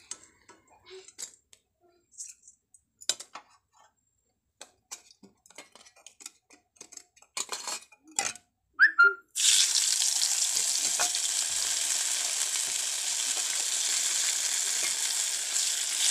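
Scattered clinks and taps of kitchen utensils, then, about nine seconds in, a sudden sizzle that starts at once and holds steady: rice batter for chakuli pitha frying on a hot pan.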